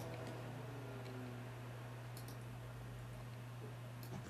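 A few faint computer mouse clicks, two close together about two seconds in and another near the end, over a steady low hum.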